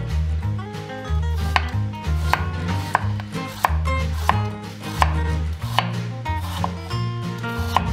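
Chef's knife slicing raw potatoes on a wooden cutting board. Each cut ends in a sharp knock of the blade on the board, about three every two seconds.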